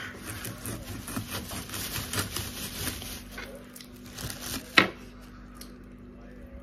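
Crackling, tearing and small clicks of smoked bream being picked apart by hand, with one sharp louder click just before five seconds, over a faint steady hum.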